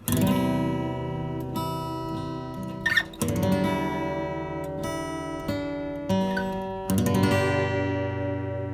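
Background music: acoustic guitar playing a few strummed chords, each left to ring out and fade.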